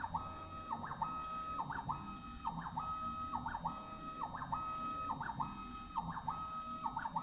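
Stepper motors driving the ballscrews of a CNC-converted Warco WM18 mill, moving the table back and forth at high speed without cutting. A steady high whine breaks at each reversal into a short swoop in pitch and a click, then starts again, a little more than once a second.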